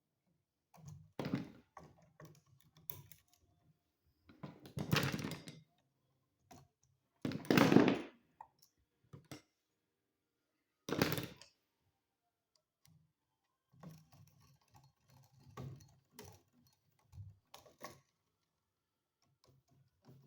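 Hand work on a wall outlet: scattered small clicks and knocks of the receptacle and copper wire being handled, with four louder scraping rubs about a second or less long, as the black wire is looped around the brass terminal screw and the screw is tightened with a screwdriver.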